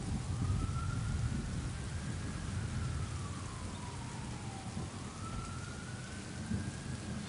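Steady rain falling, with a low rumble of thunder underneath. A distant siren wails slowly up and down twice through it.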